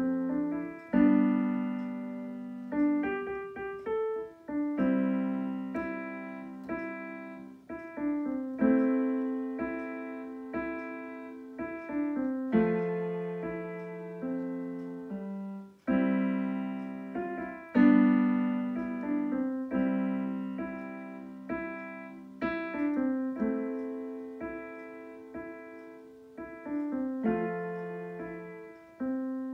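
Roland digital piano played solo with both hands: chords struck about every one to two seconds, each left to fade before the next, with a melody above them.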